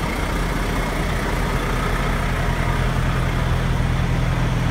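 Diesel engine of a semi-truck rig idling, a steady low hum.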